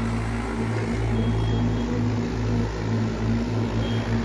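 Diesel tractor engine running steadily, a low drone that takes on a regular throbbing beat near the end.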